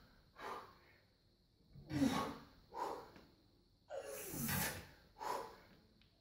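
A lifter's forceful breaths and grunted exhalations during barbell thruster reps: five short hard breaths about a second apart, two of them falling grunts.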